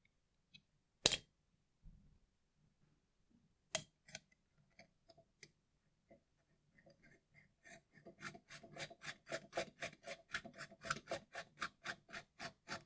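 Two sharp clicks, then a fast, even clicking rasp of about four or five ticks a second as threaded metal fittings are screwed together at the back of a Celestron EdgeHD telescope, fitting the 2-inch star diagonal.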